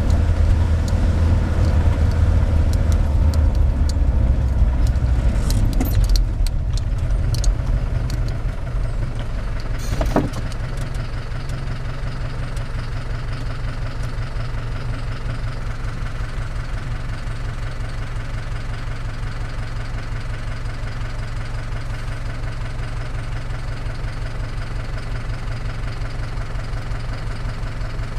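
Vehicle engine running while driving up a lane. About ten seconds in, after a single knock, it settles to a quieter, steady idle with an even rhythmic beat.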